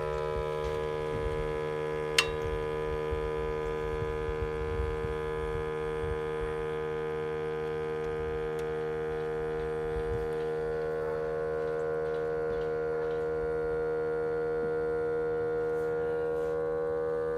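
Steady electric humming whir, like a small air compressor running, from a 2012 Ford F-350 6.7L diesel after engine shut-off. The owners trace it to a failing waste gate solenoid module under the EGR. One sharp click about two seconds in.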